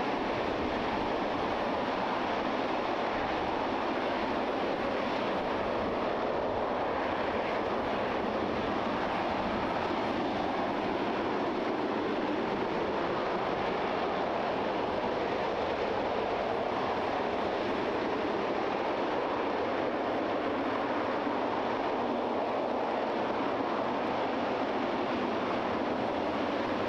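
RS-25 liquid-hydrogen/liquid-oxygen rocket engine, the former Space Shuttle main engine, firing steadily in a static test: a continuous, even roar that does not change.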